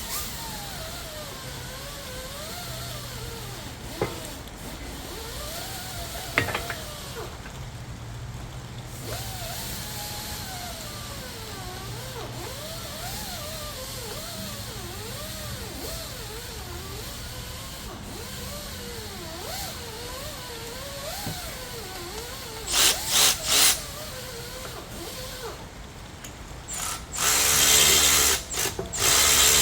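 Power tool running in three short bursts, then a longer run near the end, under a faint wavering pitched sound.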